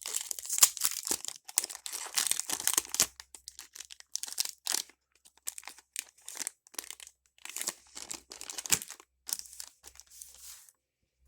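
Foil wrapper of a Pokémon TCG Evolving Skies booster pack being crinkled and torn open, dense for the first three seconds or so, then scattered crinkles and rustles as the pack is handled and the cards come out.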